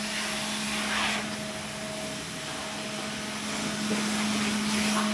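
Car-wash vacuum cleaner running with a steady hum and hiss, growing a little louder near the end.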